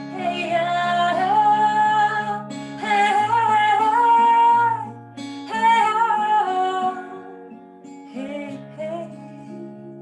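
A woman singing long, wordless chant notes over strummed acoustic guitar, in several held phrases. The voice fades after about seven seconds while the guitar rings on.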